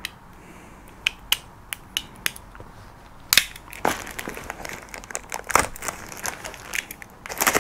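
A few sharp clicks about a second in, then irregular crinkling and crunching of the parcel's plastic wrapping as it is worked open by hand, loudest near the end.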